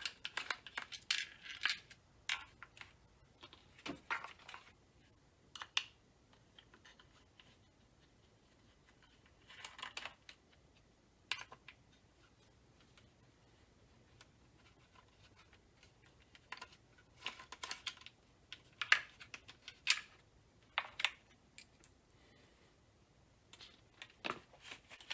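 Scattered clicks, taps and short scrapes of a hand tool working small screws out of a polymer rifle stock, with screws and parts set down on a bench, in irregular bursts separated by quiet pauses.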